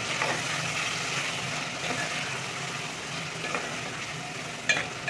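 Chicken and spice masala sizzling in an aluminium pot while a metal spoon stirs it, the spices being fried (bhuna) in the oil. A sharp clink of the spoon against the pot comes near the end.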